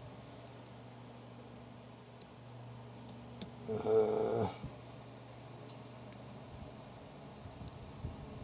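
A steady low hum with faint scattered clicks, as of laptop keys and a trackpad. About four seconds in, a man's voice makes a brief low mumble.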